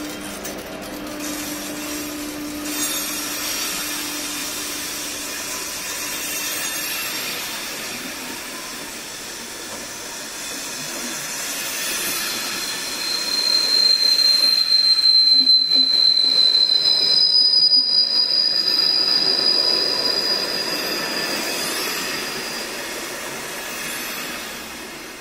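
Czech Railways passenger coaches rolling past on the rails with steady wheel running noise, and a low hum fading over the first few seconds. About halfway through, long high-pitched squealing from the wheels rings out as the loudest part, then the sound fades as the last coach goes by.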